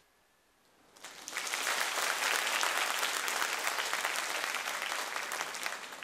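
Audience applauding: after a brief hush the clapping starts about a second in, holds steady, and eases off near the end.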